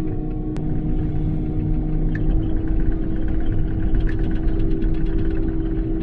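Excavator diesel engine and hydraulics running under load: a steady whine over a heavy low rumble, dipping slightly in pitch at the start. From about two seconds in to about five seconds in there is a run of rapid clattering, with one sharp click shortly after the start.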